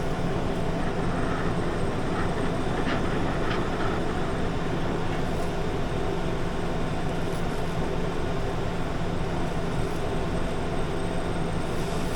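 Oxy-fuel cutting torch burning through a steel car wheel rim, a steady rushing noise with a low hum under it and a few faint ticks in the first few seconds; the oxygen supply is running low.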